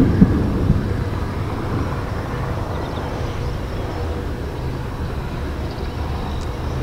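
Thunder rolling from a nearby thunderstorm: a peal with a few sharp peaks dies down in the first second into a long, steady low rumble.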